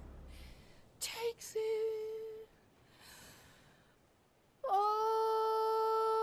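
A woman's singing voice at the close of a ballad. A breath and a short held sung note come about a second in, then a pause of near quiet. Near the end a long sung note starts suddenly and holds steady at a single pitch.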